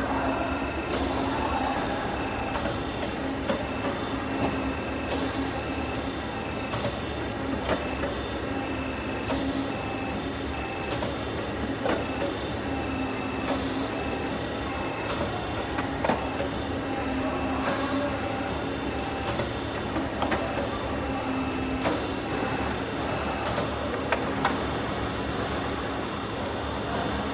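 Downspout elbow machine running steadily in repeated cycles. A machine hum with a tone that comes and goes is broken by short hisses, which fall in pairs roughly every four seconds.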